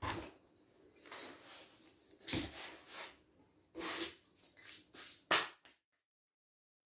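Polystyrene packing peanuts and cardboard rustling and scraping as a boxed model locomotive is lifted out of a packed carton: a handful of short, irregular rustles and scrapes. About a second of dead silence near the end.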